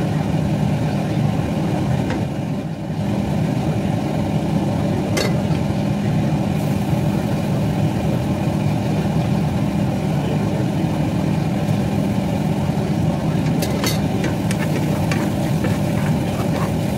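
Steady low mechanical hum, like a motor or fan running. About five seconds in there is a click, and in the last few seconds a run of clicks and scrapes from a wooden spoon stirring chopped onion in a frying pan.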